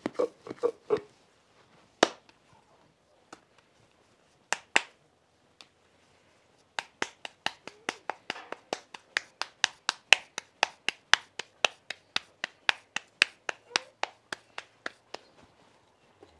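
Hands slap-patting tortilla dough from palm to palm: a few scattered slaps, then, about seven seconds in, a quick even run of slaps, about three or four a second, that stops near the end.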